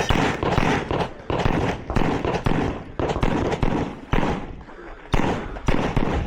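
Pistol gunfire during a USPSA stage: about a dozen sharp shots in quick pairs and short strings, with brief pauses between as the shooter moves between targets.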